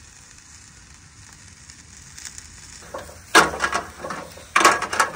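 Marinated meat skewers sizzling over a charcoal grill: a faint steady sizzle, then from about three seconds in a run of loud, irregular crackles and pops.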